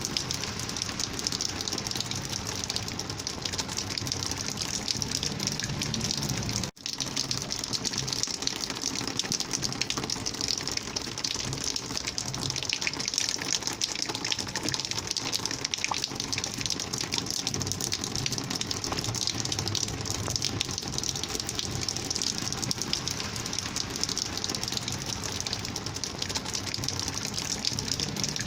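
Rainwater flowing in a steady gushing rush, which cuts out for an instant about seven seconds in and then carries on.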